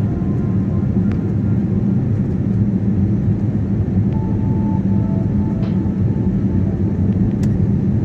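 Steady jet engine and airflow rumble heard inside the cabin of an Airbus A320-family airliner as it climbs after take-off.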